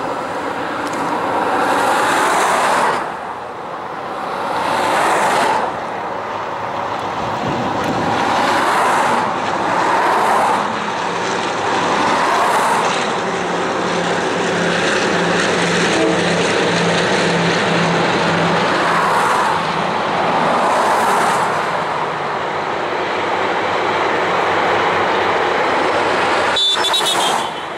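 Diesel-hauled passenger train passing close by: a long string of carriages running over the track, the wheel noise swelling every couple of seconds, with a low steady diesel engine drone through the middle. The sound drops suddenly with a click near the end.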